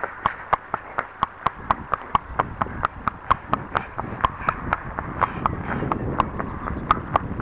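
A ridden horse's hooves clip-clopping on a tarmac lane, a steady, even beat of sharp hoofbeats at about four a second.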